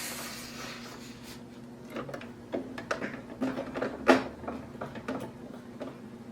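Practice paper being turned on a sewing machine's bed around the lowered needle: a series of light rustles and small clicks starting about two seconds in, the loudest just after four seconds.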